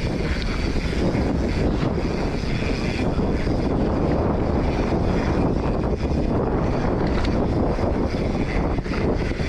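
Wind rushing over the camera microphone and the tyres of a Polygon Siskiu T7 full-suspension mountain bike rolling fast over a dirt trail on a descent, a steady noise with occasional clicks and rattles from the bike.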